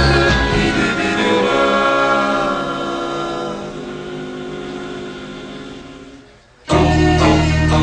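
Music with singing that fades away over several seconds, then music cuts back in suddenly near the end with a strong bass.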